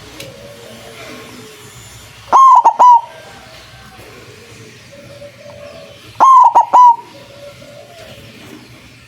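White zebra dove (perkutut) cooing its song: two loud three-note phrases about four seconds apart, with softer bird calls underneath.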